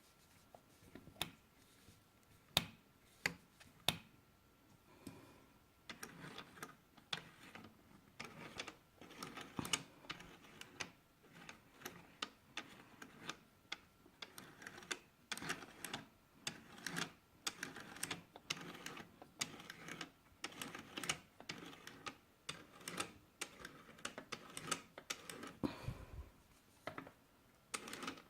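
Singer 431 sewing machine mechanism clicking and clacking irregularly as it is handled: a few sharp clicks, then quicker, denser clattering from about six seconds in.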